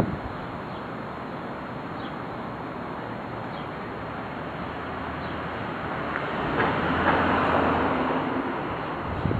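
Street background noise, with a motor vehicle passing that swells from about six seconds in and fades again shortly before the end.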